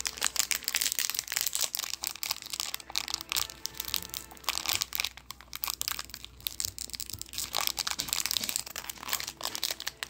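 Plastic wrapper of a Krabby Patty gummy candy crinkling in dense, irregular crackles as it is handled and picked open, along with chewing.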